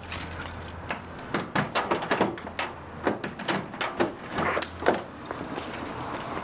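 Keys jingling and a string of metallic clicks and knocks at a car door as it is unlocked and opened.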